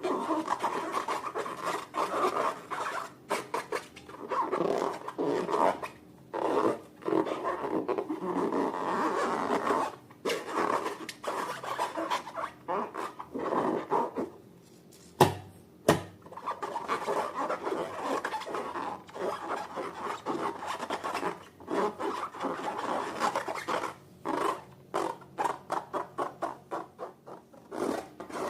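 Slime being kneaded, stretched and mixed by hand, a continuous sticky rubbing and squishing in uneven strokes. About fifteen seconds in, after a brief lull, come two sharp clicks close together, the first the loudest moment.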